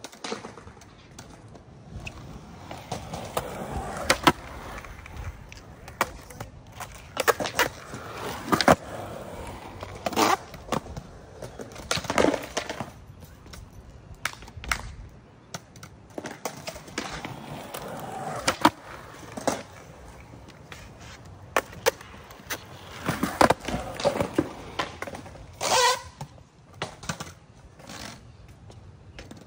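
Skateboard urethane wheels rolling on concrete, broken by a dozen or so sharp clacks and knocks as the board's tail pops and the board lands on concrete during repeated nose manual attempts.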